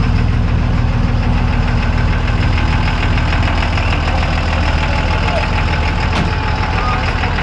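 Diesel engine of a restomodded old Dodge truck running at a steady idle, with a low, even rumble; it sounds like a Cummins diesel.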